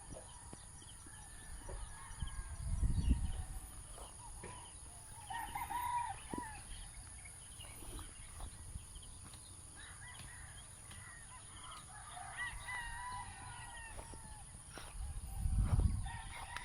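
A rooster crowing with chickens clucking around it: one strong call about six seconds in and a longer run of calls a few seconds later. Two loud low rumbles on the microphone come about three seconds in and near the end.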